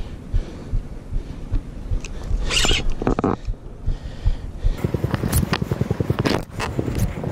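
Spinning fishing reel clicking rapidly while a hooked fish, which the angler takes most likely for a ray, pulls against the rod, mixed with scratchy rubbing of jacket fabric. The clicking turns dense and fast about five seconds in.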